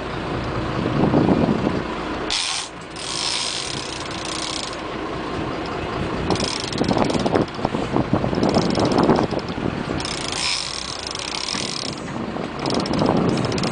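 Big-game fishing reel ratcheting in three bursts of a second or two each as a hooked fish is fought on the rod, over a steady low rumble of boat engine and water.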